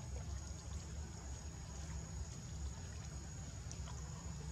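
Steady outdoor background noise: a low rumble with a constant high-pitched whine above it and a few faint light ticks.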